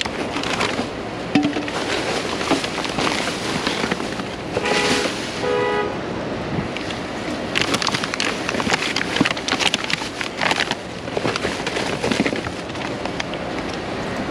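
Trash being rummaged through in a dumpster: plastic bags crinkling and rustling in irregular crackly bursts, densest in the second half.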